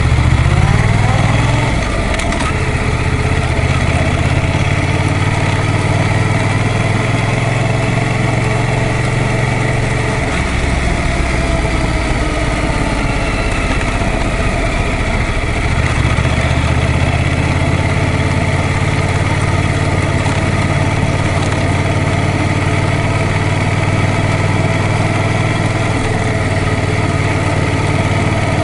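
Yamaha MT-07's 689 cc parallel-twin engine heard from the rider's seat, its note rising as the bike pulls away in the first second or two, then running at low, steady road speed. For a few seconds in the middle the engine note drops lower before picking back up.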